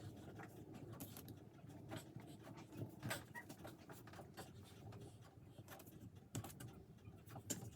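Faint scattered clicks and light taps of hands pressing refrigerated pie crust dough into small heart-shaped baking cups, a few sharper ticks among them, over a quiet room hum.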